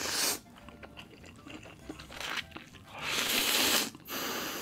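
A person eating a mouthful of instant laksa noodles close to the microphone: soft bites and chewing, with a longer, louder noisy stretch about three seconds in.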